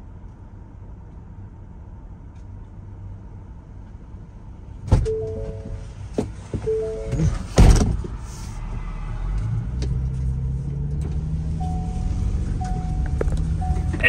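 A vehicle door shutting with a heavy thud, after a knock and a few short electronic chime tones. Then the engine starts and runs, its pitch rising a little as it settles, with a chime tone repeating near the end.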